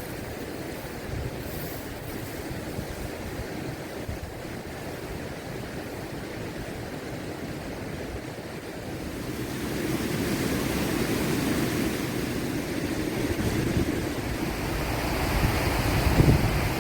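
Steady rush of flowing water from a waterfall or stream, growing louder a little past halfway, with wind buffeting the microphone near the end.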